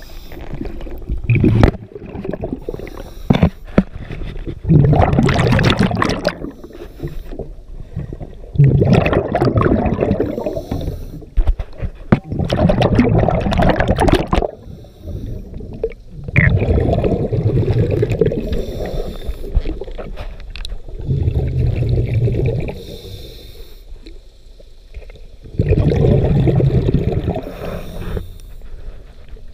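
Scuba diver's regulator breathing, heard underwater: about six long bursts of exhaled bubbles gurgling out, with quieter gaps for the in-breaths and a few short knocks between them.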